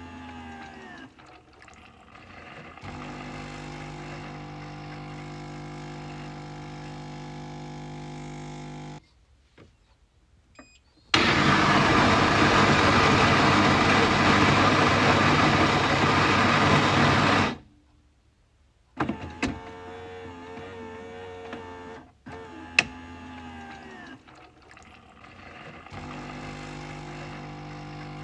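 Coffee machine working through a cycle: a steady motor hum with several fixed tones, a pause, then a loud rushing noise for about six seconds that stops abruptly. After another pause come clicks, a sharp click, and the hum again.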